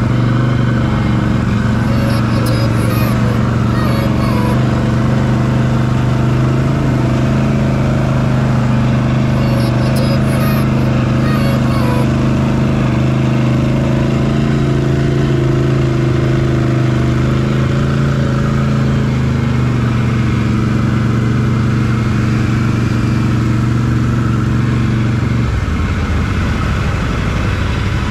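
Can-Am Renegade 1000R's V-twin engine running steadily at light throttle while the ATV wades through shallow creek water. About 25 seconds in the engine note drops as the throttle is let off.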